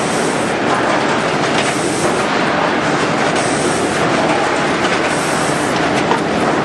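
ULMA vertical form-fill-seal packaging machine running, with steady mechanical clatter, a short hiss about every second and a half, and a few sharp clicks.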